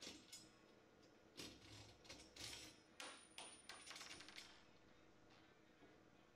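Faint metallic clicks and taps as a steel swivel plate and its bolts are fitted down onto the chrome legs of a bar stool, a scatter of short knocks over the first four and a half seconds.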